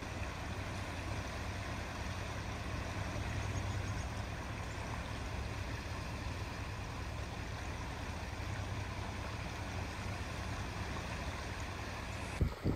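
Steady rushing noise of a flooded creek running high over its banks, with a constant low rumble underneath. A brief knock comes near the end.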